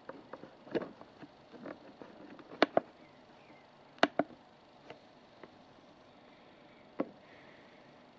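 Mechanical clicks from the ToolkitRC M8 charger's push-button rotary dial. Light ticks come as it is turned through the menu, then sharper clicks in quick press-and-release pairs twice as the button is pushed to confirm the charge, and one last single click.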